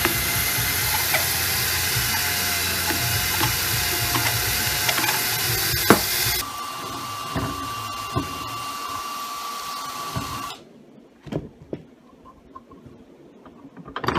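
Hand-held electric drill running steadily as it bores a hole through the reel mower's metal rod. The sound changes about six seconds in to a quieter, steadier run with a held whine, and the drill stops about four seconds later. Light clicks and knocks of handling follow.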